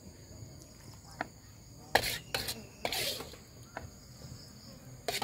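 A spatula clinking and scraping a few times against the wok and a plate as sambal is spooned onto fried fish, the loudest clink about two seconds in. A steady high chirring of insects runs underneath.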